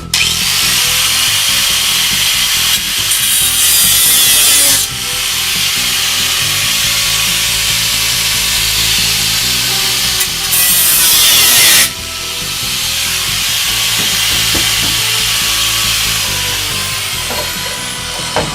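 Angle grinder with a cut-off disc cutting through rusted sheet steel, running continuously with two louder stretches, about three to five seconds in and again around ten to twelve seconds.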